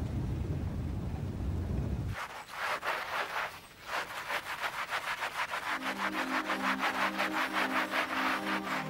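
A scrubbing brush working a wet, soapy blanket in quick, even back-and-forth strokes. It starts about two seconds in, when a low car-interior rumble cuts off, and soft sustained music notes come in partway through.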